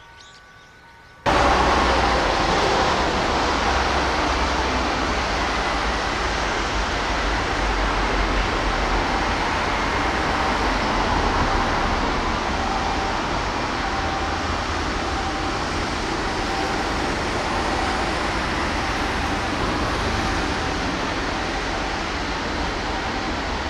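Loud, steady outdoor rumble and hiss that cuts in suddenly about a second in and holds level, a deep rumble under an even hiss.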